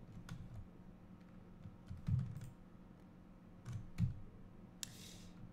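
A few scattered computer keyboard and mouse clicks, a handful of separate presses with pauses between them, over a low steady hum.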